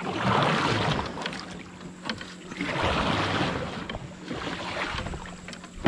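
Kayak paddle strokes in river water: two swishing surges about two and a half seconds apart.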